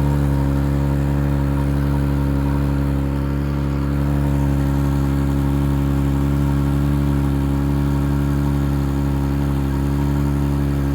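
A 2019 Chrysler Pacifica Hybrid making a steady, unchanging low drone with several even tones stacked in it, one of the odd sounds its owner is recording.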